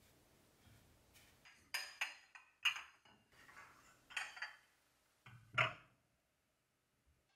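White ceramic plates and bowls clinking against each other as they are set down and stacked, a series of sharp clinks over a few seconds.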